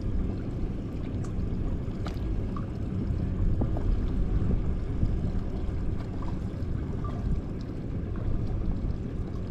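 Water sloshing and wind around a boat drifting at sea, a steady low rumble with a few faint ticks.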